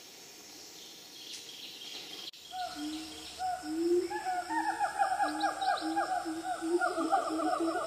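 Faint rainforest ambience with high insect and bird chirps, cut off about two seconds in by louder outro music: a pitched, warbling tone with rapid, repeated downward swoops.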